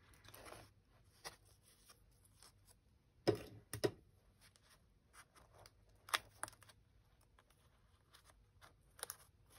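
Hands handling a handmade paper folio card: scattered soft paper rustles and light taps, with a pair of slightly louder rustles a few seconds in.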